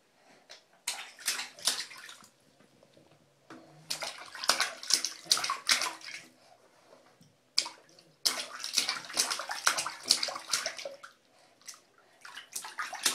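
A baby splashing bathwater with his hands in a plastic infant tub: several spells of quick slapping and sloshing, with short quiet lulls between.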